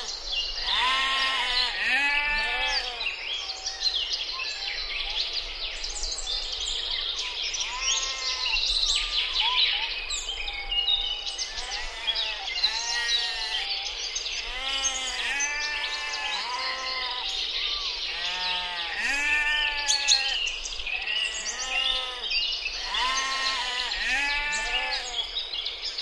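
Several sheep bleating over and over, deep and high calls overlapping, with a busy high chirping above them.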